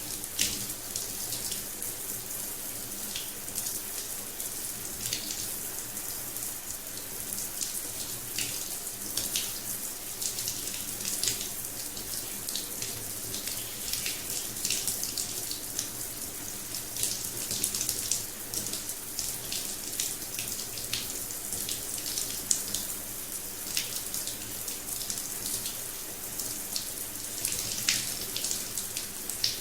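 Rain showerhead running steadily, its spray hissing and splashing onto a hard surface with frequent sharp splatters.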